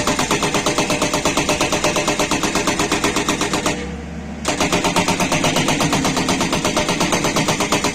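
Hydraulic rock breaker on a Tata Hitachi 200 excavator hammering with rapid, even blows. It stops for about half a second near the middle, then starts again. The stone is very hard and the breaker is not breaking it.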